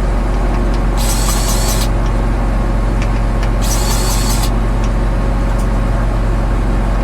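An engine idling steadily, with a short hiss twice, about two and a half seconds apart.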